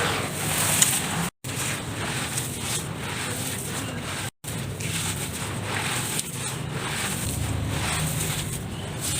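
Hands crumbling and stirring loose dirt-like material, giving a continuous gritty rustle with small crackles. It is broken twice by a split-second silent gap.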